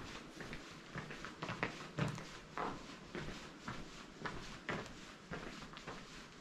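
Footsteps walking on a gravel-and-dirt track inside a stone-vaulted tunnel, at about two steps a second, with the tunnel adding a room-like echo.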